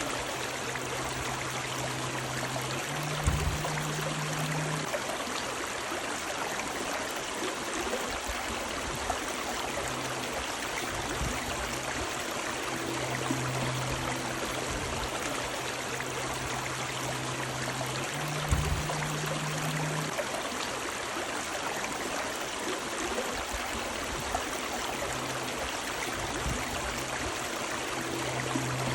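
River water running steadily, an even rushing flow. Under it there is a low hum that comes and goes, and a brief low thump twice, about three seconds in and again some fifteen seconds later.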